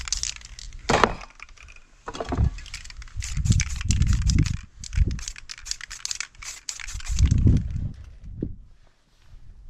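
Aerosol spray paint cans hissing in bursts as paint is sprayed onto a stencil, mixed with crackling clicks and recurring low rumbles. The sound falls away near the end.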